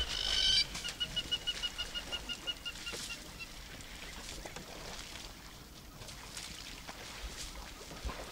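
A brief loud, shrill call, then a bird calling a rapid string of evenly spaced short notes, about six a second, that stops after about three seconds.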